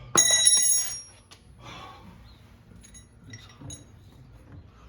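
A metal part or tool strikes something hard and rings bell-like for just under a second, followed by a few faint metallic clinks about three to four seconds in.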